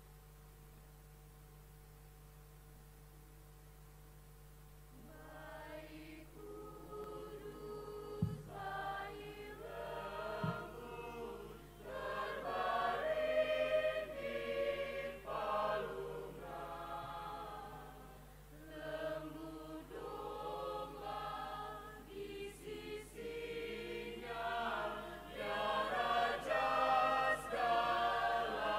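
Mixed choir of men's and women's voices singing, starting about five seconds in after a near-silent stretch with a faint steady hum. Two brief low thumps come a few seconds after the singing begins.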